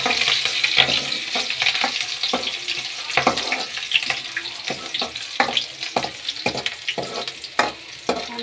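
Cumin seeds, garlic and chopped green chilli sizzling in hot oil in a metal kadai, while a steel ladle stirs them and clicks and scrapes against the pan. The sizzle eases somewhat towards the end.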